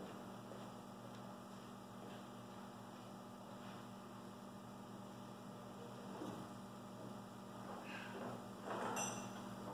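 Faint, steady electrical mains hum, with a few soft rustles and knocks near the end.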